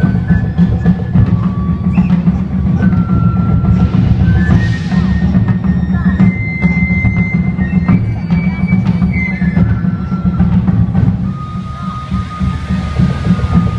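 Japanese taiko drums playing a fast, dense rhythm under a high melody of held notes. Near the end, the rushing hiss of hand-held tezutsu tube fireworks spraying sparks joins in.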